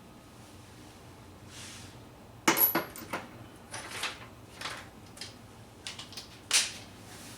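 Steel sockets and hand tools clinking and clattering as a long 15 mm socket is swapped onto the torque wrench: a handful of sharp metallic clanks from about two and a half seconds in, with the loudest near the start and near the end.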